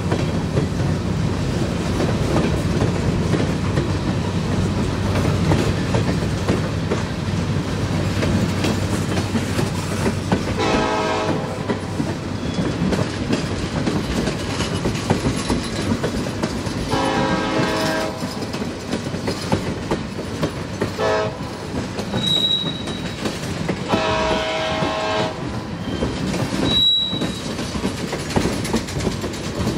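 Freight train cars, covered hoppers then tank cars, rolling past with a steady wheel rumble and clatter. From about ten seconds in, the distant locomotive horn sounds four blasts, long, long, short, long, the grade-crossing signal. Two brief high wheel squeals follow near the end.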